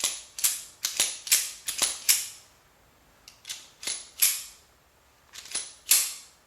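Ruger LCP pocket pistol's slide being worked by hand, sharp metallic clicks and snaps in four quick bunches, against its new, stiffer 13-pound recoil springs.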